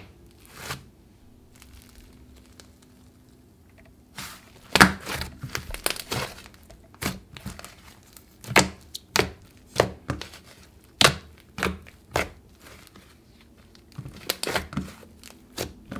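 Hands poking, pressing and folding a thick, soft cloud cream slime mixed with green clay, giving irregular sharp clicks and crackles, in denser runs about five seconds in and again near the end.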